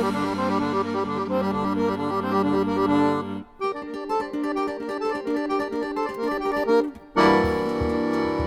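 Accordion playing instrumental music: sustained chords over held bass notes, with two brief breaks. The music comes back in loudly near the end.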